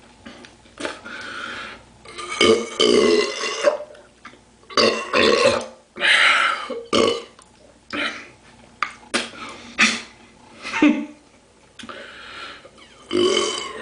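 A man belching over and over: a run of loud burps, each lasting under a second to about a second, with short pauses between them.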